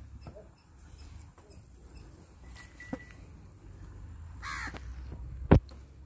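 A bird gives a short, harsh call about four and a half seconds in and again at the very end. Between the two calls comes a single sharp knock, the loudest sound, over a low steady rumble.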